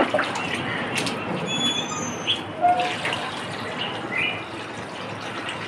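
Water sloshing and splashing as a mug is dipped into a plastic tub of water and scooped out, with a few knocks against the tub. Small birds chirp briefly now and then.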